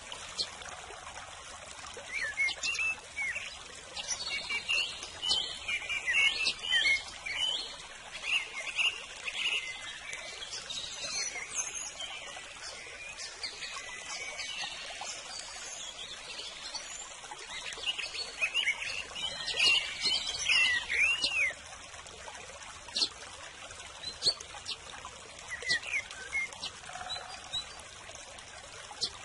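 Small birds chirping in quick, curving notes over the steady trickle of running water. The chirping comes and goes, busiest in the first dozen seconds and again about two-thirds of the way through.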